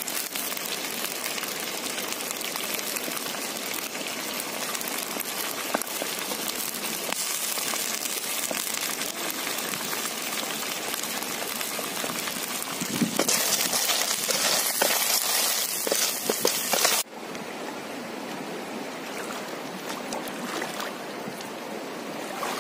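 Snails sizzling in a steel pan over a wood fire as spice paste is poured in, the sizzle growing louder and brighter about three-quarters of the way through. It cuts off suddenly to the quieter, steady rush of a shallow river.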